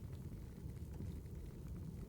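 Firewood burning: a steady low rumble with scattered faint crackles and pops.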